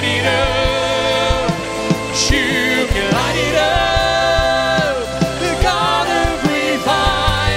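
Contemporary worship song: a woman sings the lead line, holding long notes, over a full band with a steady drum beat and bass.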